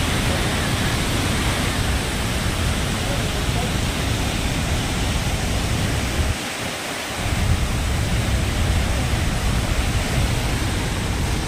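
Steady roar of Niagara's Horseshoe Falls, a thick even rush of falling water. The deep part of the rumble drops out for about half a second near the middle, then comes back.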